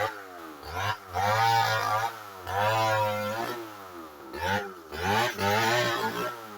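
Two-stroke chainsaw running hard in a cut, its pitch dipping and climbing back several times as the chain loads and clears.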